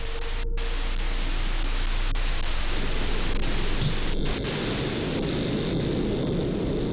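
Loud, steady hiss of television static with a low hum under it. A faint tone fades out in the first couple of seconds, and a denser, rougher layer of noise in the lower range joins after about three seconds.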